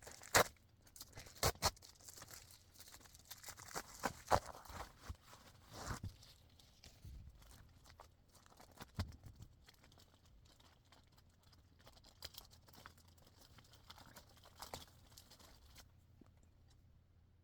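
Magazine packaging being unwrapped and handled: irregular crinkling and tearing with sharp clicks and taps. The sound is loudest in the first few seconds, then thins out and nearly stops near the end.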